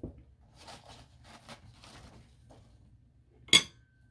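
A few faint rubbing strokes, then a single sharp clink of a hard object with a brief ring about three and a half seconds in.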